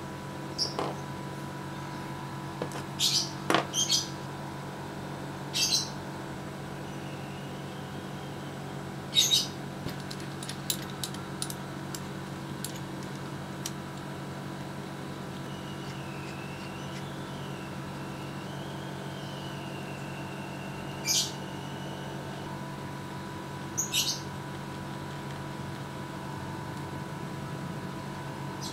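Short, high bird chirps, a handful scattered through, with a wavering high whistle in the middle, over a steady hum. A few faint clicks come about halfway.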